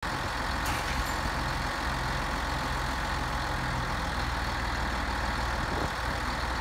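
Engine idling steadily, with a brief click just under a second in.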